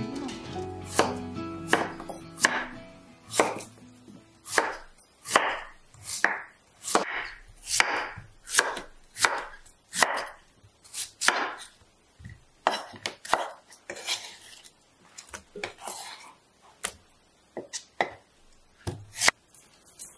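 Knife chopping Korean radish into chunks on a wooden cutting board, with crisp strokes about two a second. The strokes thin out to scattered knocks in the second half.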